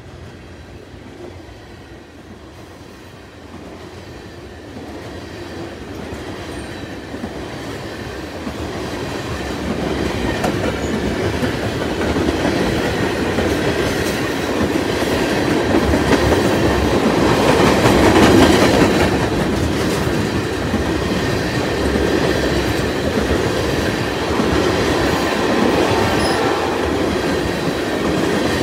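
Freight train tank cars rolling past, their steel wheels running over the rails. The sound grows steadily louder through the first half and is loudest about two-thirds of the way in.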